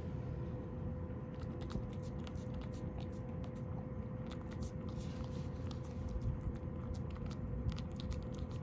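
A cat eating wet food from a ceramic bowl, licking and chewing: a run of quick, irregular wet clicks and smacks.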